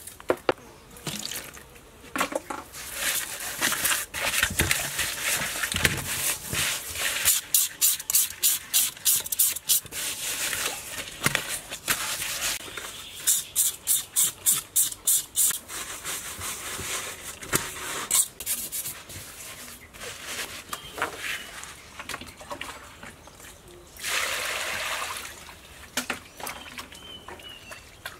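Hands scrubbing a whole fish with salt in water in a large stainless steel bowl: water sloshing and splashing. There are runs of quick, even splashes at about three a second.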